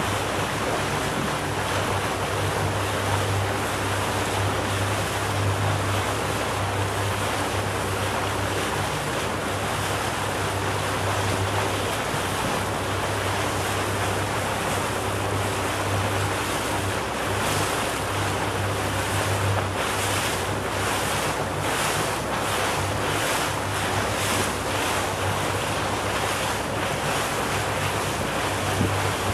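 Motorboat under way: a steady low engine drone under the rush of water along the hull and wind buffeting the microphone, with a run of short gusts about two-thirds of the way through.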